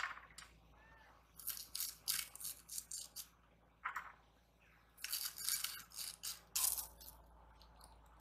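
Raw cabbage being sliced against a bonti (a fixed upright kitchen blade): crisp, rapid cutting strokes in a few bursts with short pauses between them.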